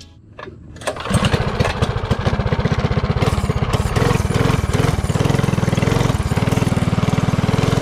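Tillotson 212cc single-cylinder four-stroke engine on a mini bike running steadily under way, a fast even pulsing exhaust note, coming in about a second in after a brief quiet moment.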